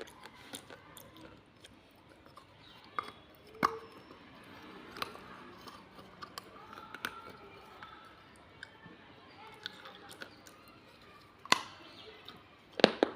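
Pieces of baked clay pot being bitten and crunched between the teeth: scattered sharp cracks with quieter grinding in between, the loudest cracks in a quick cluster near the end.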